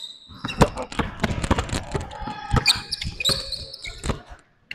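Basketball dribbled on a hardwood gym floor, a run of repeated bounces, with short high squeaks from sneakers on the floor.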